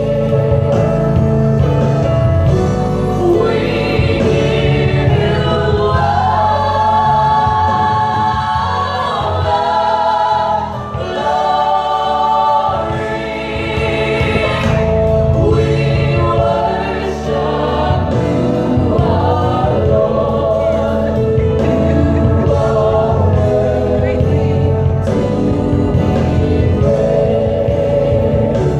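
Gospel choir singing in harmony through microphones over live band accompaniment, holding long notes.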